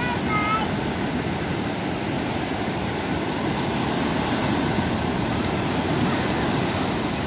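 Ocean surf breaking and washing up a sandy beach, a steady rushing noise, with a child's short high-pitched cry at the very start.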